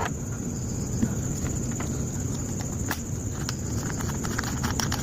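Small grinder running, a steady high whine over a low rumble, with irregular sharp clicks and taps throughout.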